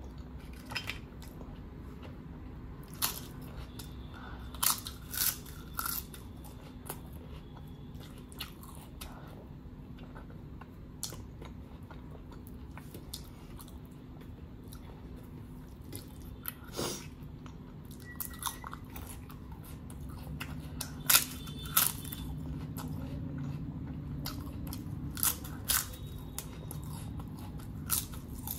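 Close-miked chewing and crunching of a crisp papad with rice, with sharp crackles scattered irregularly. The two loudest crunches come a little past two-thirds of the way in.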